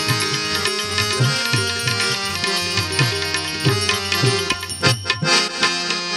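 Instrumental interlude of a Gujarati bhajan: tabla playing a steady rhythm, its low strokes bending in pitch, under sustained melody instruments. The drumming breaks off briefly about five seconds in.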